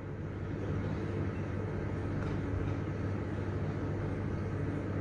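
Steady low background hum with a faint hiss, even throughout, with no distinct clicks or knocks.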